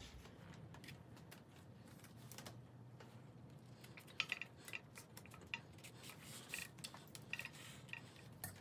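Faint handling noise of hemp seine twine and inseam thread being worked around a shoe held on the last, with scattered small clicks and ticks, more of them in the second half.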